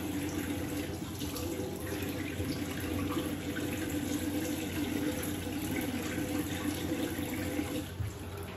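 Bathroom sink tap running steadily, turned off with a small click near the end.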